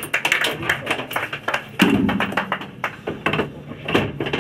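Irregular taps, clicks and knocks from handling inside a stopped race car's cockpit as someone reaches in at the driver's side.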